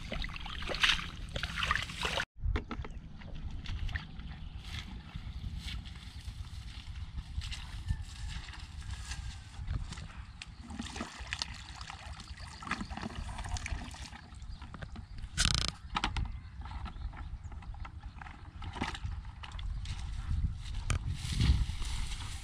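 Hands sloshing and squelching in shallow muddy water, then after a sudden cut a steady low rumble of wind on the microphone, with rustling and scuffing in grass.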